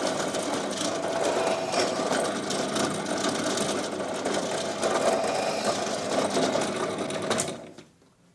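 Benchtop drill press running steadily as it drills a hole through thin steel can metal for a pop-pop engine's copper pipe, then stopping about seven and a half seconds in.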